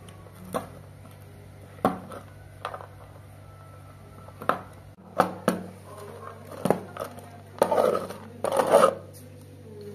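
Kitchen knife chopping pistachios on a plate: separate sharp knocks of the blade on the plate, a second or so apart. Near the end come two longer scraping strokes as the blade gathers the chopped nuts, over a low steady hum.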